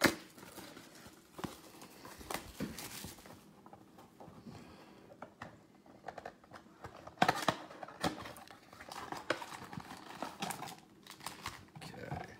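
Plastic wrap crinkling and a cardboard Prizm football blaster box being opened by hand, with rustling and sharp clicks as the card packs are handled and pulled out.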